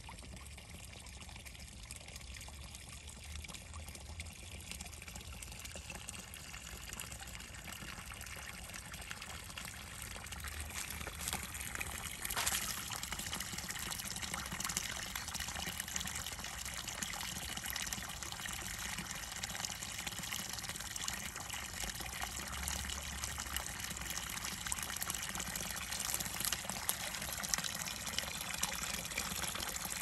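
A thin stream of water pouring into a shallow pool: a steady splashing trickle that grows louder over the first half.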